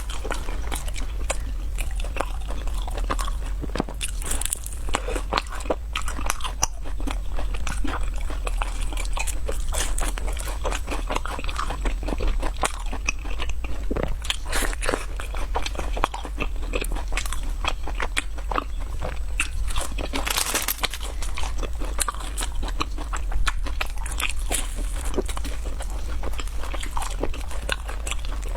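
Close-miked crunching and chewing of fried snacks: a dense, irregular run of crisp crunches and bites, over a steady low hum.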